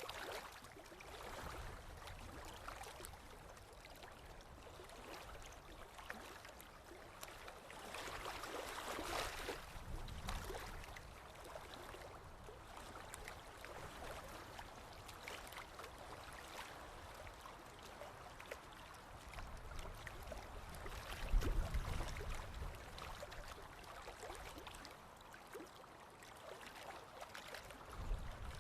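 Forest river flowing, a steady rush of water with many small splashes, swelling louder about eight to ten seconds in. A low rumble rises around twenty-one seconds in and briefly again near the end.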